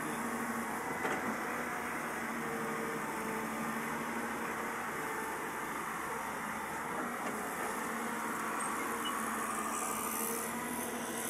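Steady hum of distant engines from the road construction works beside the bridge: machinery and traffic running with no single event standing out.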